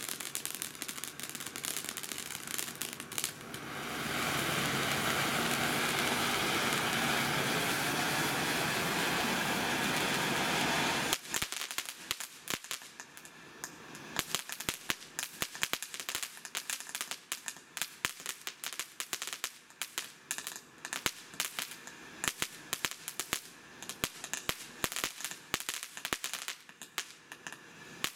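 Black Cat Kaboodle fountain firework burning: it crackles, then gives a loud steady hiss for about seven seconds that cuts off suddenly, and goes on with a long run of dense, rapid crackling pops.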